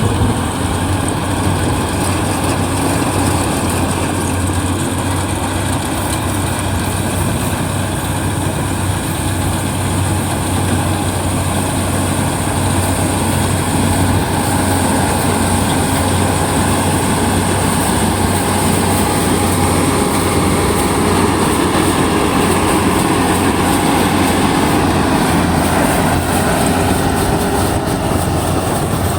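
Kubota combine harvester running steadily, a constant low diesel hum under dense machinery noise.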